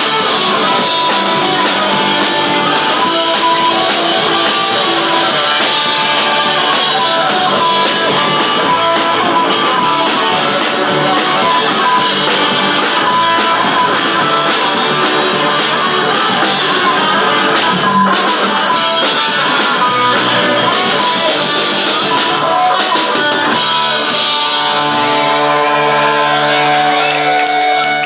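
Punk rock band playing live, guitars to the fore over bass and drums; in the last few seconds the guitars hold long ringing chords.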